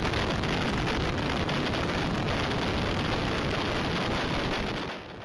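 Tornado winds with heavy rain blasting a security camera's microphone: a loud, dense, steady rush that drops off sharply near the end.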